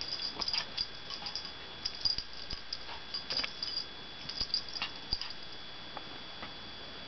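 A dog moving about as it chases its tail: scattered light clicks and taps, with no barking.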